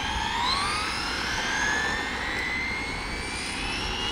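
Traxxas XO-1 electric RC car's brushless motor whining at full throttle, the pitch climbing steadily as the car accelerates away on a top-speed run and levelling off near the end.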